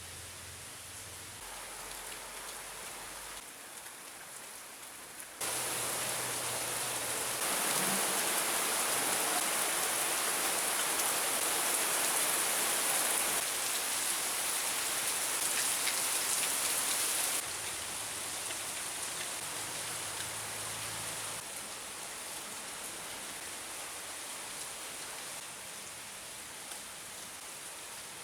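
Heavy rain pouring down, a steady hiss of drops on surfaces. It gets suddenly louder about five seconds in, heaviest in the middle, then falls back in steps.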